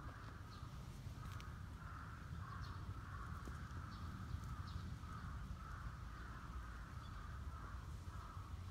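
Faint outdoor ambience: repeated distant bird calls over a steady low rumble.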